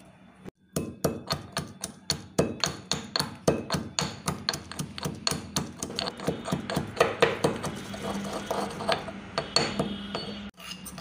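Metal pestle pounding shallots, peppercorns and fennel seeds in a heavy mortar, crushing them to a coarse paste: a quick, steady run of knocks, about three or four a second. It starts about half a second in and stops shortly before the end.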